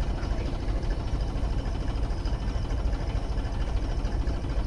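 Tractor diesel engine running steadily with a low, even beat while driving a water pump.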